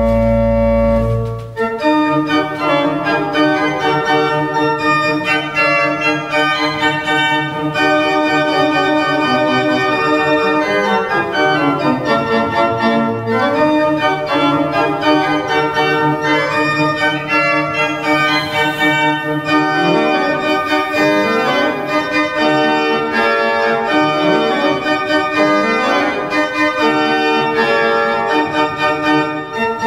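Baroque pipe organ, the 1751 Martin Podkonický instrument, playing: a held full chord with deep bass breaks off about a second and a half in, then fast runs and repeated notes move over held lower notes, with quick rising and falling scales.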